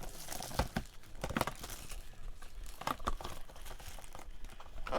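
Plastic packaging crinkling and tearing as a box of baseball cards is unwrapped and opened, with irregular crackles and small clicks.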